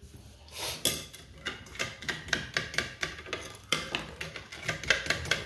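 A metal spoon clinking against a ceramic bowl while stirring barbecue sauce, about four quick clinks a second, starting about half a second in.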